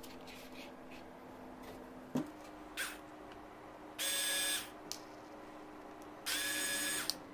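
Small cordless drill-driver run in two short bursts of about half a second each, turning the small screw in the end of a soldering iron's heating element tube. A sharp knock comes about two seconds in, before the first burst.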